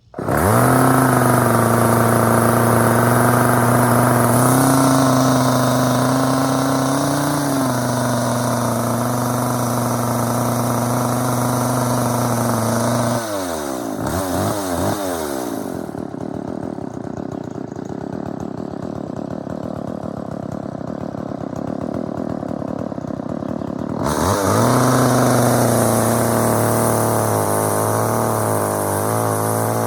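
McCulloch Pro Mac 435 two-stroke chainsaw firing up on the throttle lock and running at a steady fast idle. About 13 seconds in it drops to a lower idle, and about 24 seconds in it picks up again, its speed wavering near the end. The owner says it could use a little more idle speed.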